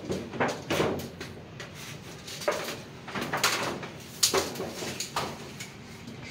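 Irregular scraping and rubbing strokes with a few knocks, spaced a half second to a second apart: hand work against a wall and light-steel ceiling frame.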